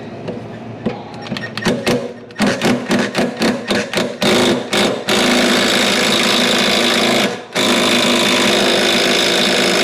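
Impact wrench with a 15/16 socket working a mower blade bolt: a string of short trigger pulls, then two long runs of hammering of about two seconds each, with a brief pause between them.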